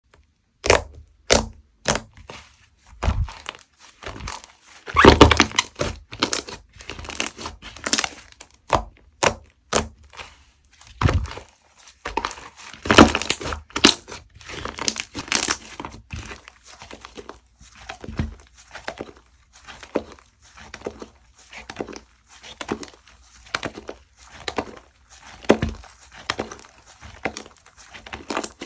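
Clay-mixed slime being squeezed, folded and stretched by hand, giving irregular bursts of crackling and popping clicks, with a few louder pops about five, thirteen and fifteen seconds in.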